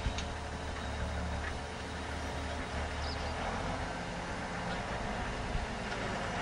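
Farm tractor's engine running with a steady low note as the tractor drives away over the field, a little fainter in the second half.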